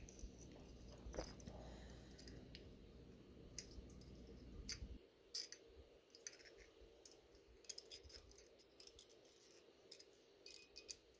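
Faint, scattered metallic clicks and light scraping of a piston ring being worked into its groove on a piston by hand.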